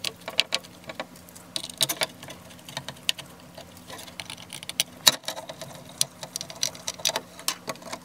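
Irregular light clicks and scrapes of a small Phillips screwdriver working tiny screws out of a kitchen scale's button circuit board, with the plastic housing being handled; the sharpest click comes about five seconds in. A faint steady hum runs underneath.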